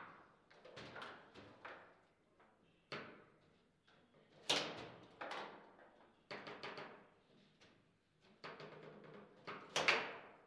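Table football play: the ball struck by the plastic player figures and knocking against the table, with rods clacking, in an irregular run of sharp clacks and bangs. The hardest hits come about four and a half seconds in and near the end.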